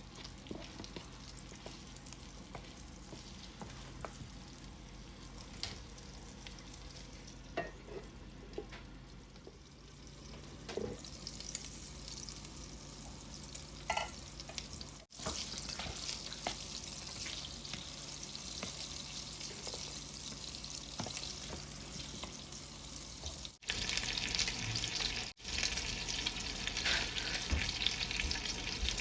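Food sizzling in hot oil in a frying pan, with a few light knocks. The sizzle grows louder in two steps about halfway and near the end, and cuts out briefly a few times.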